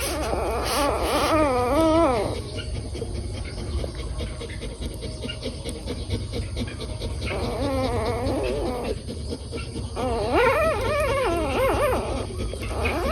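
Newborn golden retriever puppies crying in thin, wavering squeals that rise and fall in pitch. The cries come in three bouts: one at the start, a shorter one at about seven seconds, and a longer one at about ten seconds.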